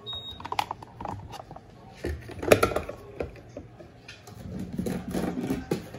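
Electrolux Turbo Compacta top-loading washing machine starting its initial agitation: a short high beep right at the start, then irregular clicks and knocks as the load of rugs is worked, loudest about two and a half seconds in.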